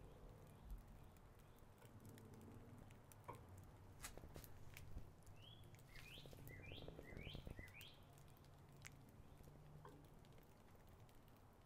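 Faint sharp clicks of steel meat hooks knocking on the cooker's rebar bars as the steaks are hung, with a bird calling a quick run of about five rising chirps about six seconds in.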